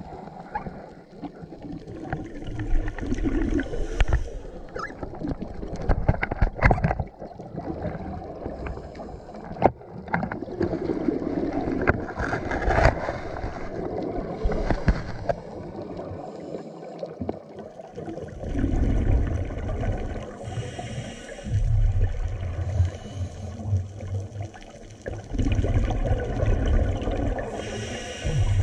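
Scuba breathing through a regulator underwater: a hiss on each inhale, then a low rumbling gurgle of exhaled bubbles, repeating every few seconds. A few sharp clicks or knocks in the first part.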